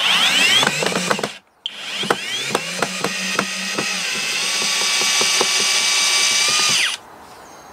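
HOTO 12V brushless drill running in reverse to back a screw out of wood: the motor whirs up, stops briefly about a second and a half in, then runs again for about five seconds with rapid clicking before cutting off near the end.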